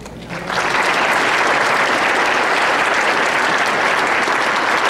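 Audience applause in a large hall, starting about half a second in and holding steady.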